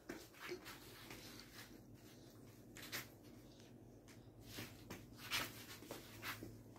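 Faint, scattered rustles and soft knocks, about seven over several seconds, over a low steady hum.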